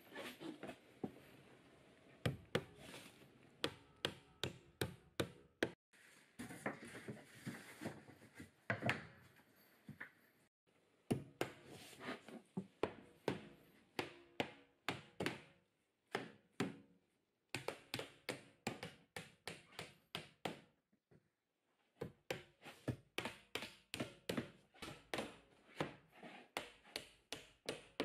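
Hand hammers striking pine tongue-and-groove wall boards as they are knocked into place and nailed. Runs of quick, sharp taps, several a second, stop and start with short breaks between them.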